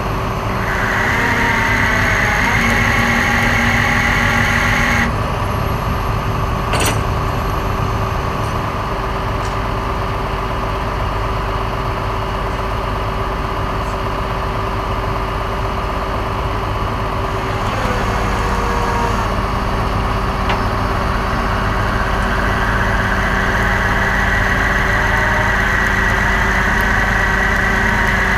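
A rollback tow truck's engine runs steadily while its winch pulls a submerged car up the boat ramp. A high whine fades in and out over the engine hum as the winch is worked, with a single sharp knock about seven seconds in.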